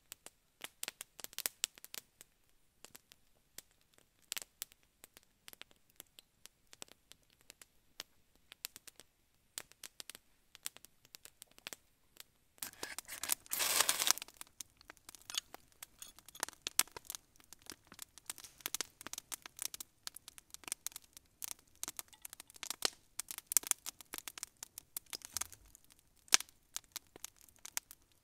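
Campfire crackling: irregular sharp pops and snaps from burning wood, with a louder rush of noise about halfway through.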